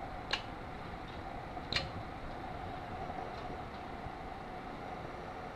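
Steady hum and hiss of the running radio station equipment, with two short clicks, one just after the start and one a little under two seconds in, as buttons on the Yaesu FT-897D transceiver are pressed to change its RF power setting.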